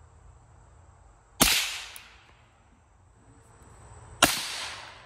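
Two suppressed rifle shots through an Aero Precision Lahar suppressor, about three seconds apart, each a sharp crack with a short trailing echo.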